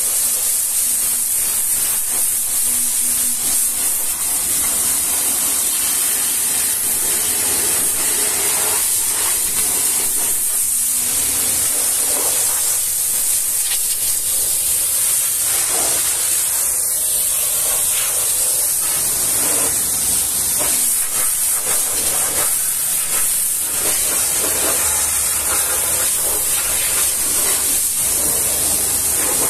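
Pressure-washer jet spraying water against a truck's steel fender, wheel well and tyre, a steady loud hiss with no pauses.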